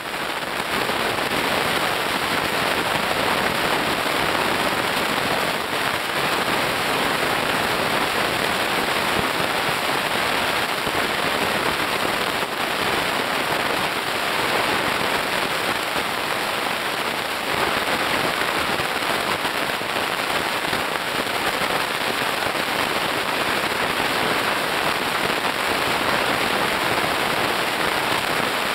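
Dense, steady crackling of snapping shrimp heard underwater on a coral reef, a continuous mass of tiny clicks.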